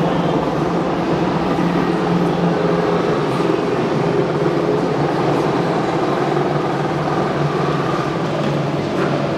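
Steady mechanical drone with a constant low hum, the background noise of a motorcycle race pit lane.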